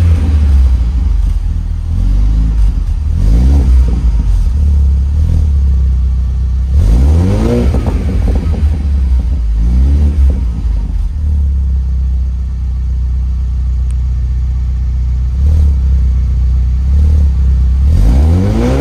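2021 Ford Bronco engine idling through a newly fitted MBRP cat-back exhaust and being revved in short blips. Revs come at about one, three, seven and ten seconds in, the one at seven seconds the biggest. A long stretch of steady idle follows, then a last rev near the end.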